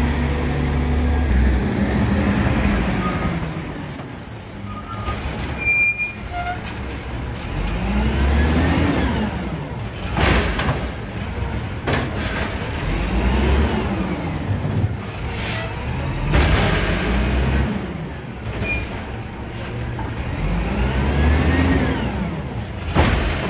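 Diesel engine of a Volvo WX64 garbage truck with an Amrep Octo automated side-loader body, revving up and dropping back about four times in a row. Sharp bursts of noise, like air hisses or knocks, come between the revs.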